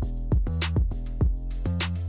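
Background music with a steady drum beat over a bass line, a sharp snare-like hit about every second and a bit.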